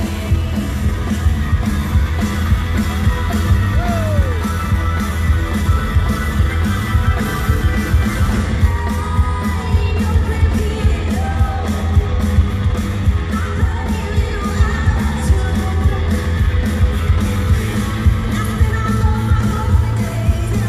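Live country-rock band playing loud in an arena, with drums driving a steady beat under electric guitars and a woman's lead vocals. Heard from the crowd, with a heavy, boomy low end.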